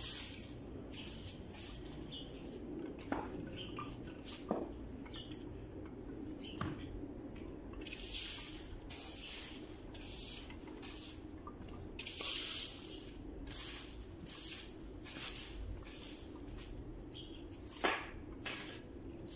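Long-handled broom sweeping dry leaves across paving: short brushing swishes, one per stroke, at an uneven pace of about one a second, with a few light knocks and a sharper knock near the end.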